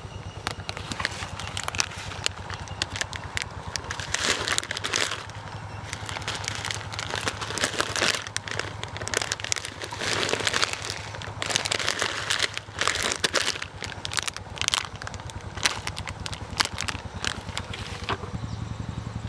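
Plastic chanachur snack packet crinkling and crackling as it is handled, with many irregular clicks over a steady low hum.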